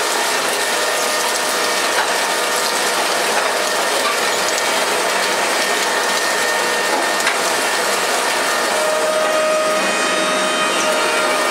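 Industrial rotary-shaft shredder running, its cutters chewing scrap into small fragments with a steady, dense clatter.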